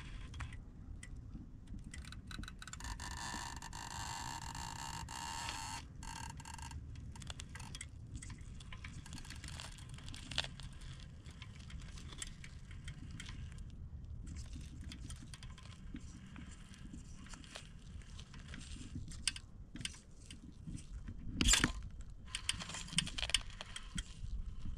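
RC rock crawler with a Fusion Pro motor and two-speed transmission creeping over rock: a gear-drive whine, strongest for a few seconds near the start, with tyres crunching and scraping on grit and stone and scattered clicks, and one sharp knock near the end.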